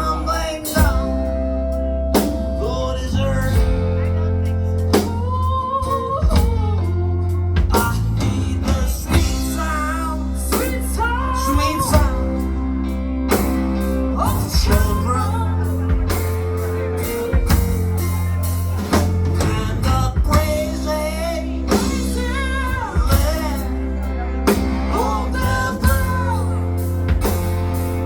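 A live band playing a slow blues-rock song, with drum kit, bass and guitar. A bending melodic lead line runs over them.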